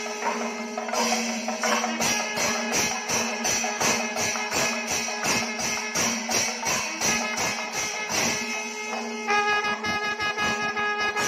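Kerala temple ensemble playing: ilathalam hand cymbals and drums strike a steady beat of about three to four strokes a second, while curved brass kombu horns sound long notes, one held loud from about nine seconds in.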